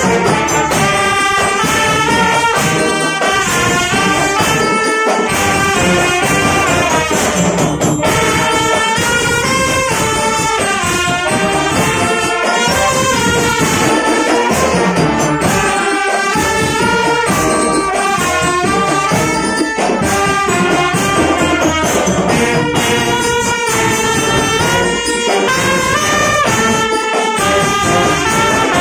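A marching drum band playing a tune, led by trumpets and other brass over snare drums.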